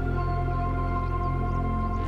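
Ambient new-age background music with held, sustained notes.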